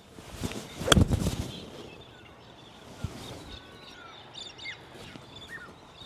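A golf wedge (52-degree) striking a ball off the turf with one sharp click about a second in, followed by faint bird chirps.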